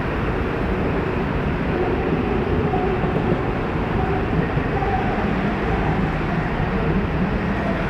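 Ganz UV tram running along the track: a steady rumble of wheels on rails and running gear, with a faint wavering whine.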